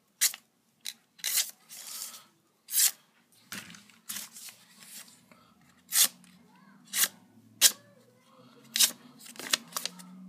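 A sharp knife blade slicing through pieces of paper in about a dozen quick, crisp cuts at irregular intervals, testing the edge's sharpness.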